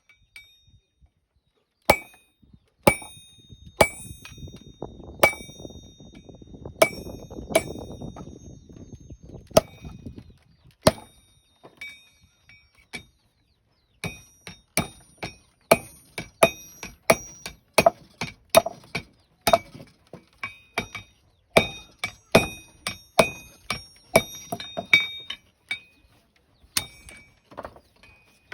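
Blacksmith's hammer striking hot steel on an anvil while forging a linggis (steel crowbar), each blow giving a sharp clang with a bright ring. The blows come singly at first over a low rushing noise, then about halfway through settle into a quick run of roughly two blows a second.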